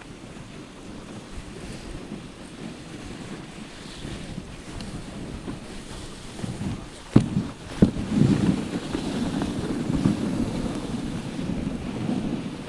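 Dog sled runners hissing over packed snow, with wind buffeting the microphone. Two sharp knocks come a little past halfway, after which the runner noise is louder and rougher.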